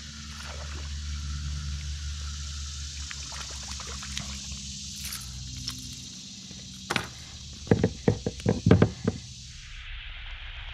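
A hooked smallmouth bass splashing and dribbling water at the surface as it is reeled up beside a plastic kayak. Near the end comes a quick run of sharp, loud knocks as the landed fish flops against the kayak hull and the angler's hands.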